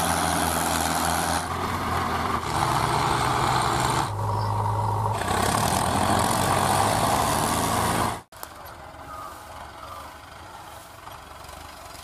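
Mahindra Arjun diesel tractor engines running loudly, in short stretches whose pitch and level change abruptly every second or two. About eight seconds in the sound drops suddenly to a much quieter engine running steadily.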